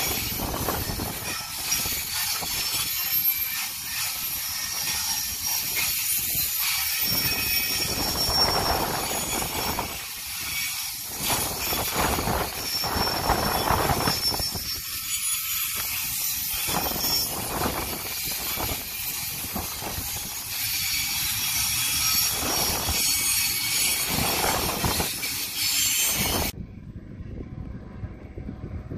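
Freight train container wagons rolling past close by: a steady rumble and clatter of wheels on rail, with thin high-pitched wheel squeals coming and going. About 26 seconds in it cuts off suddenly to a much quieter low hum.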